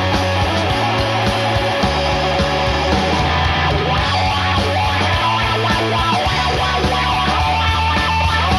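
Punk rock band's demo recording in an instrumental stretch: electric guitar and bass guitar over drums, with no vocals.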